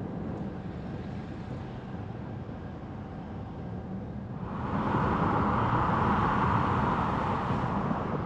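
Car driving: a steady low road and tyre rumble, joined about halfway through by a louder hiss that eases off near the end.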